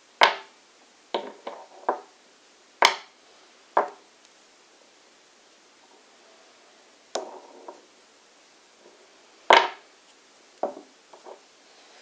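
Thick copper rings and a rare earth magnet knocking and being set down on a wooden tabletop: about a dozen sharp clacks at irregular times, the loudest about a quarter second in, near three seconds and near nine and a half seconds.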